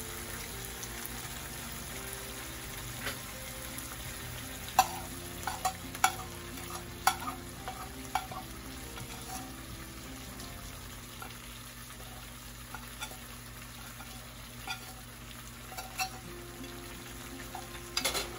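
Chicken leg pieces in a thick masala sizzling steadily in a pan, with a few sharp clicks of a spoon scraping spice powder off a plate into the pan.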